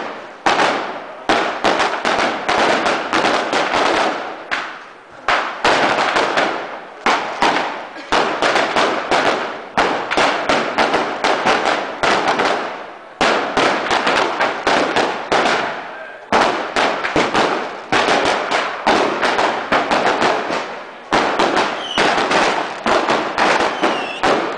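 Firecrackers going off in a continuous barrage: dense runs of sharp bangs several a second, broken by brief lulls every few seconds.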